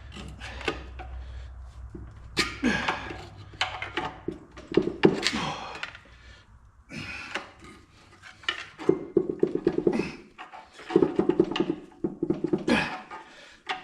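Repeated knocks and clunks of wrench work on the flywheel bolts of a Minneapolis Moline ZA tractor engine as they are worked loose, with a few quick runs of rapid clicking in the second half.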